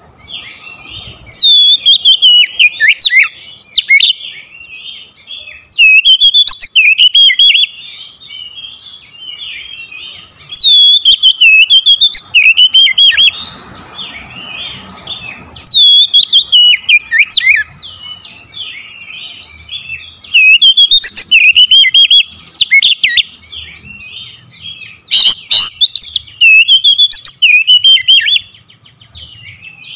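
Oriental magpie-robin singing loud, varied phrases of clear whistles and rapid chatter, one phrase about every four to five seconds. The loudest notes distort. Softer chirping carries on between the phrases.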